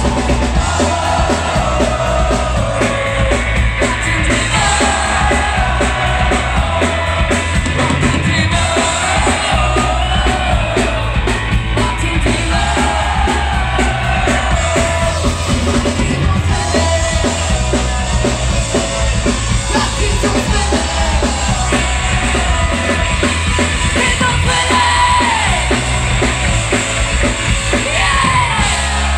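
Ska-punk band playing live and loud: electric guitar, bass and drum kit keeping a steady driving beat, with the lead singer singing and shouting over it, heard from the crowd near the stage.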